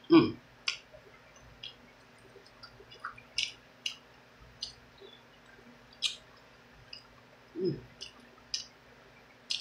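Close-miked mouth sounds of someone eating a bone-in chicken wing: wet lip smacks and clicks, short and scattered irregularly at about one a second. There is a brief hummed murmur a little before the end.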